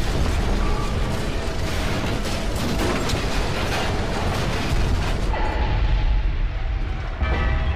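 A rhydonium-laden starship exploding, as a film sound effect: a continuous heavy blast with a deep rumble and many crackling debris impacts. The highest, hissing part of the blast drops away a little past the middle while the rumble carries on.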